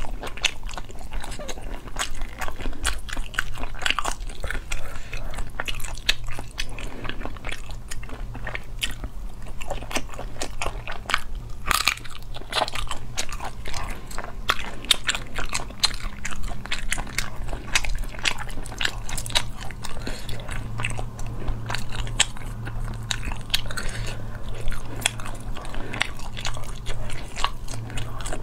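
Close-miked eating of braised snails by hand: a dense, irregular run of clicks and crunches as the shells are pried apart and the meat is bitten, with chewing throughout.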